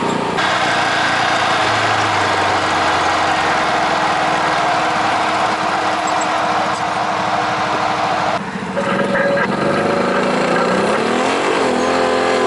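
Side-by-side UTV running, heard from a camera mounted on the vehicle: a steady rushing noise, then after a cut about eight seconds in, the engine's drone rising and falling in pitch as the vehicle moves off.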